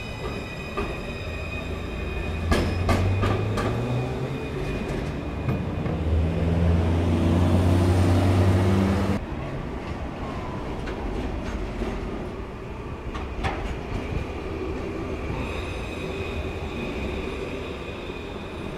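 Melbourne C-class (Alstom Citadis) tram running along street track: a few clicks of wheels over track joints, then a motor whine rising in pitch as it picks up speed, cutting off suddenly at about nine seconds. After that comes quieter running noise from trams and street traffic, with a thin high tone and occasional clicks.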